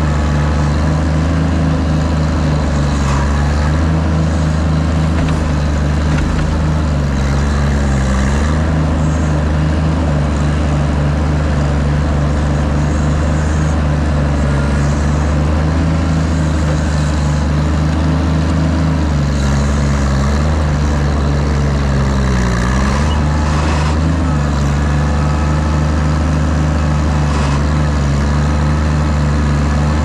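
Oliver 1600 tractor's six-cylinder engine running steadily under way, heard close up from the driver's seat. The engine speed dips briefly about eight seconds in and again around twenty-two seconds.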